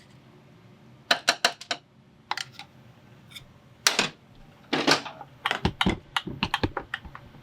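Irregular clusters of sharp clicks and knocks from tools and metal parts being handled while the broken oil pump of a Harley engine is worked on, with a heavier knock about four seconds in and a quick run of clicks near the end.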